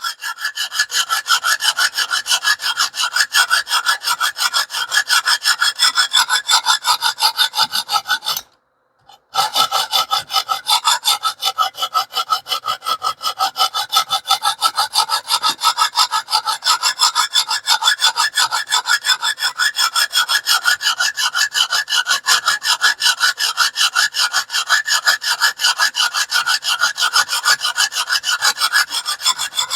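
Very coarse 50-grit KME 'Beast' sharpening stone on a guided-rod sharpener, rasping back and forth across a small cleaver's edge in rapid even strokes, several a second, with a pause of about a second some eight seconds in. The stone is taking metal off fast to set a new bevel, and no burr has formed yet.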